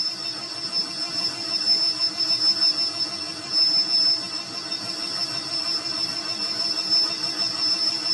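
Lathe turning a truck crankshaft journal with a cutting tool: steady machine running with a constant high whine.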